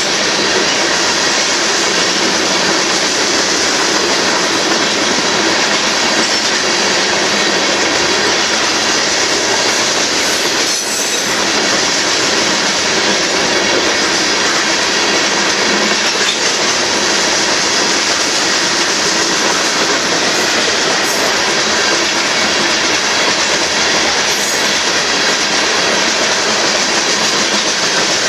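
Freight cars of a Union Pacific manifest train rolling past at speed, a steady loud noise of steel wheels on rail.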